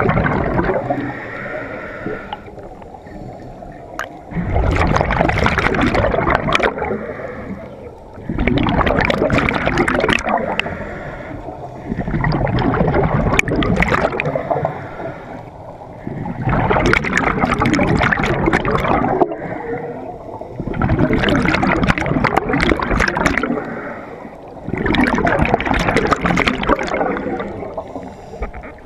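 Scuba diver breathing through a regulator underwater: six bubbling exhalations, roughly one every four seconds and each lasting two to three seconds, with quieter stretches between the breaths.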